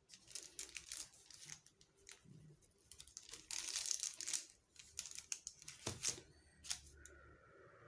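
Baking paper crinkling and rustling under hands as baked rolls are pushed and lifted off it, in irregular bursts with a few sharp crackles, loudest about three to four seconds in.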